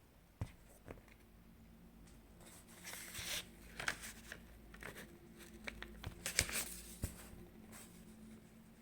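Quiet handling sounds: a few sharp clicks or taps, with bursts of rustling, crinkling noise in the middle.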